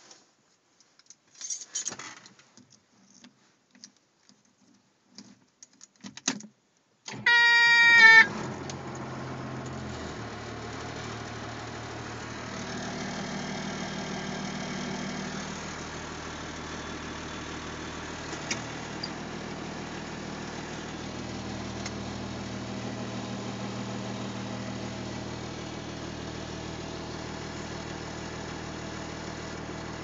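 Cat D5 bulldozer's diesel engine being started: a few clicks and knocks in the cab, then a loud high whine lasting about a second as it cranks. The engine catches about eight seconds in and runs steadily, its note rising and falling a little.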